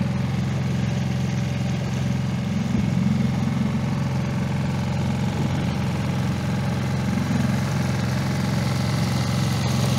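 Small outboard motor on an inflatable boat running at a steady speed, an even low hum.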